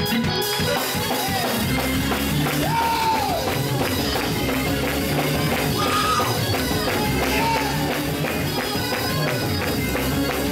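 Live church praise-break music, with drum kit and tambourine playing.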